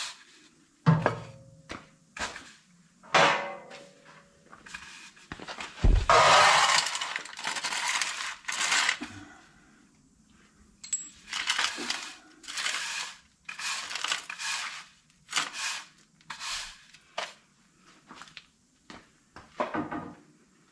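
Metal hand tool scraping and chipping rock-hard old grease off a steel steering knuckle, in irregular strokes with sharp metallic clinks and taps; the longest, loudest scrape comes about six seconds in.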